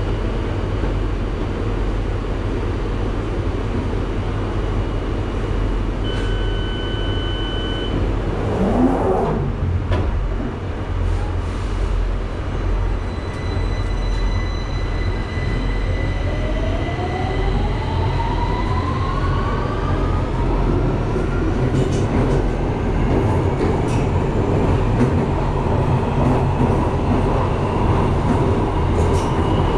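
London Underground Victoria line train heard from inside the carriage: a steady rumble of wheels on track. About six seconds in, a steady electronic tone sounds for about two seconds. A brief falling whine follows around nine seconds, and from about sixteen seconds the train's motor whine rises in pitch for several seconds as it gathers speed.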